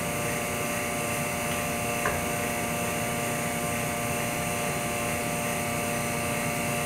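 A machine runs with a steady whirring hum holding several fixed tones, and there is a faint click about two seconds in.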